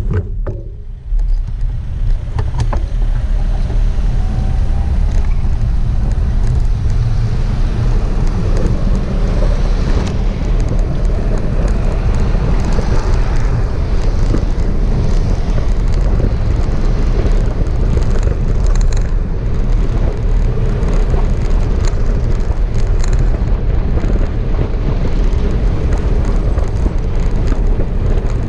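Steady wind rumble on a handlebar-mounted camera's microphone while a cargo bike is ridden along a road, with road and traffic noise underneath. The level dips briefly about a second in, then stays loud.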